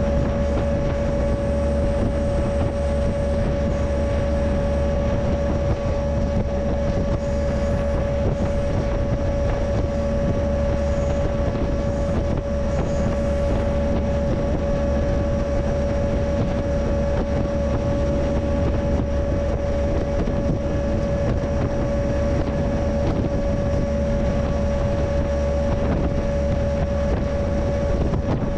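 Freight train running along the line: a steady low rumble of wheels and rails with a constant high whine held throughout.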